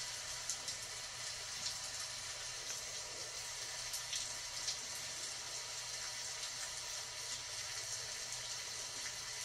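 Steady rain hiss, with a few faint short ticks scattered through it.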